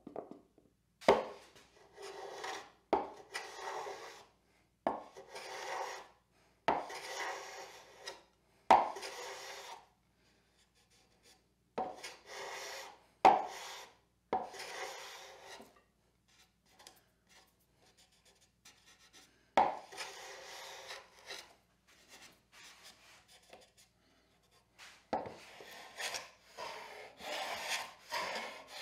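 Metal hand plane taking shavings off the end-grain and long-grain edges of a wooden box, stroke after stroke: each stroke opens with a sharp click as the blade bites, then about a second of hissing cut. The strokes come in runs with two short pauses, and bunch up quickly near the end.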